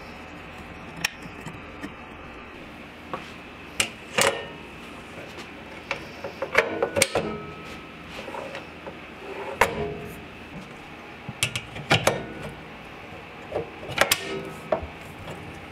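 Irregular clicks and knocks of hard parts being handled and fitted together by hand, about fifteen sharp strikes spread over a steady low background.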